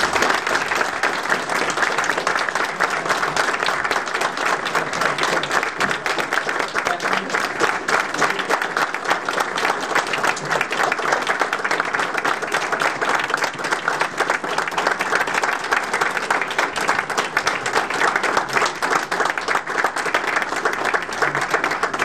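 Audience applauding: many hands clapping in a dense, steady patter that goes on without a break.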